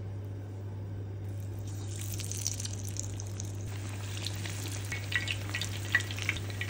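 Falafel patties sizzling in deep hot oil as they are dropped in from a falafel mold. The hiss starts about two seconds in and turns to busy crackling from about four seconds as more patties go in. The oil is hot enough for frying.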